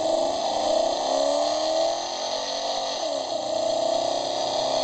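Electronic train sound effect from a toy level crossing's small speaker: a sustained horn-like chord of several tones that dips in pitch about three seconds in, then carries on steadily.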